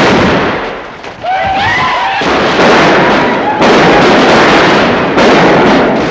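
Loud bursts of noise, four in a row, each starting abruptly and lasting a second or more, with a few short high cries about a second in.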